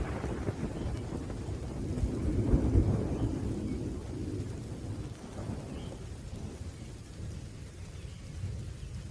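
Thunder rumbling low and slowly dying away over steady rain, with a second swell of rumble about two to three seconds in.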